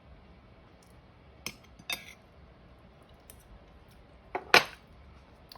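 A metal utensil clinking against a plate a few separate times. The loudest clink comes near the end.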